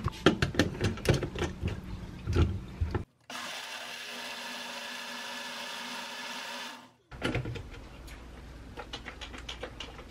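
A Kitchen Flower retro personal blender runs for about four seconds, blending bananas into black bean soy milk, starting and stopping abruptly. Before it come knocks and clicks as banana goes into the jar and the jar is fitted onto the base. After it come lighter clicks as the jar is lifted off.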